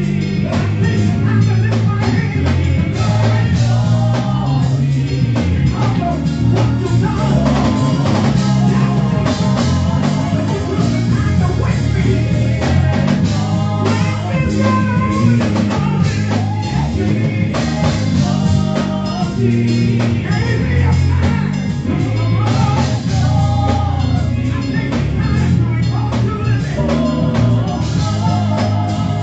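Gospel band music: drums, bass and electric guitar playing a steady beat, with a voice singing over it.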